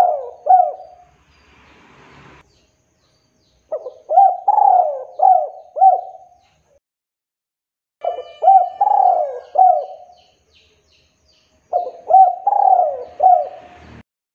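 Male spotted dove cooing in repeated phrases of four or five coos. The end of one phrase is followed by three more, each about two seconds long, roughly every four seconds.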